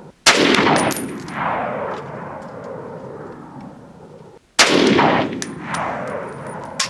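Saiga 308 semi-automatic rifle firing two 7.62x51 rounds about four seconds apart, each shot followed by a long rolling echo. Faint high clicks and rings follow each shot.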